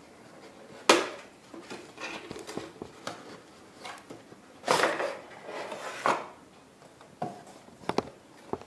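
Hands opening an AMD Phenom II retail CPU box: cardboard and plastic packaging being handled, with a sharp snap about a second in and scattered rustles and clicks after.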